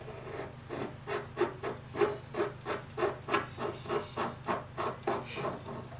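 Metal rear lock ring of a CCTV lens being unscrewed, its threads scraping in short rasping strokes, about three a second.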